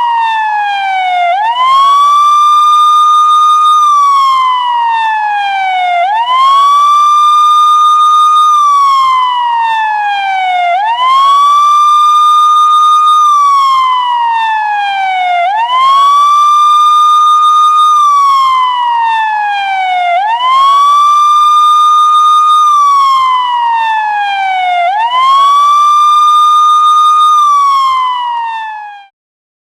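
Police car siren sounding a slow wail. Each cycle rises quickly, holds its high pitch for about two seconds, then slides down over about two seconds, repeating roughly every five seconds. It fades out just before the end.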